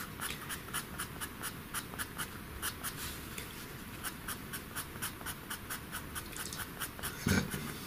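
Pastel pencil scratching over paper in rapid short strokes, about four a second, as fur is hatched in. There is a brief low sound near the end.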